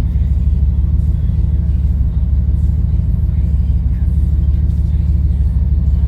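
Car engine idling steadily with an even, low rumble, running after its vacuum leak was fixed and its idle and fuel pressure adjusted.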